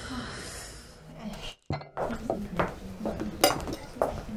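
Knives and forks clinking and scraping against china dinner plates as diners cut their food, with several sharp clinks in the second half.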